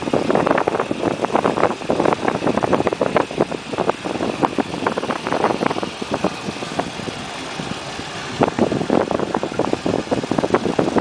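Small outboard motor running slowly on an open skiff, with choppy water knocking and splashing irregularly against the hull.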